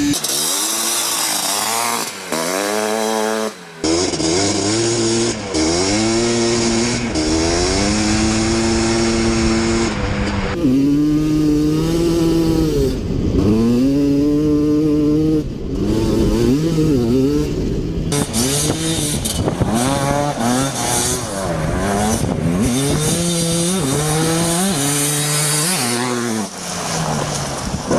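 Two-stroke race quad engine revved again and again, the pitch climbing and falling back in repeated blips of the throttle, with a few abrupt changes in tone along the way.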